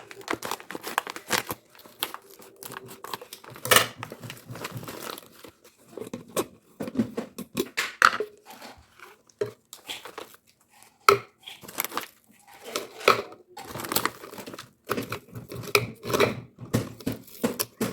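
Plastic packaging crinkling and tearing as it is handled and opened by hand, in irregular bursts with a few sharp clicks.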